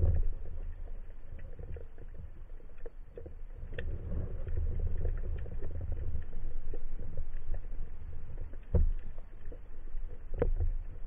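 Underwater sound picked up by a speargun-mounted camera in its housing as the diver descends along a reef: a steady low rush of water with scattered clicks and crackles, and a couple of heavier knocks.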